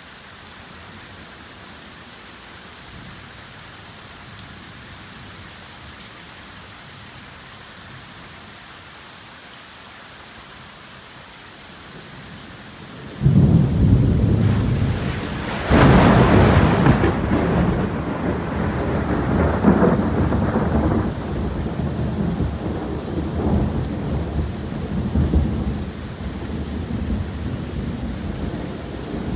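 Heavy rain falling steadily in a thunderstorm. Partway through, a sudden loud thunderclap breaks in, a second louder crack follows a couple of seconds later, and the thunder keeps rumbling over the rain, slowly easing.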